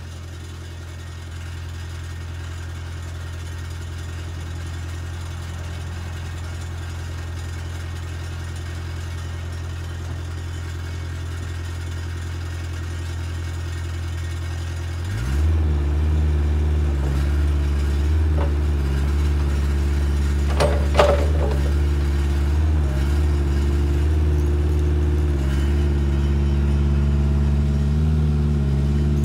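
Volvo EC35 mini excavator's diesel engine idling steadily, then throttled up about halfway through to a higher, louder steady run as the machine starts working. A couple of short sharp clanks come a few seconds after the throttle-up.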